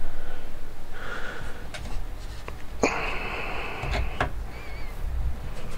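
A long, wheezy sniff through a stuffed-up nose, lasting over a second, about three seconds in. It comes among a few small clicks of a screwdriver and fingers working inside a metal computer case.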